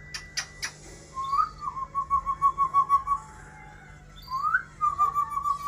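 Pet parrot whistling twice. Each whistle is a quick upward slide into a long, pulsing, warbled note. A few sharp clicks come in the first half second.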